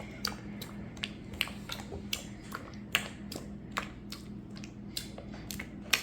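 Spoon stirring white glue and borax activator together in a mixing bowl, making irregular sticky clicks and squelches several times a second as the slime begins to activate. A faint steady hum lies underneath.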